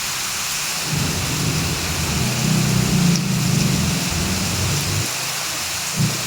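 Heavy rain falling in a steady hiss, with a low rumble underneath that swells about a second in and fades out near the end.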